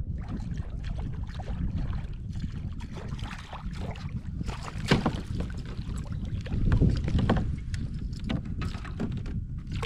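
Out on the water in a kayak: wind rumbling on the microphone, with scattered small splashes and knocks, the sharpest about five seconds in.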